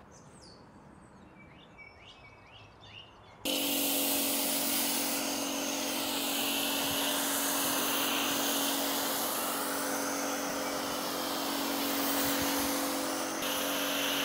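A few faint bird chirps, then about three seconds in a pressure washer starts spraying snow foam through a foam cannon onto a car: a loud, steady hiss of spray over the machine's steady hum.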